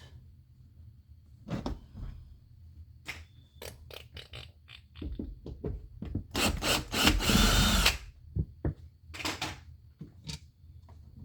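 Power drill spinning in one burst of just under two seconds, about six seconds in, working a screw on a car-door speaker mount. Scattered clicks and knocks of handling the parts come before and after it.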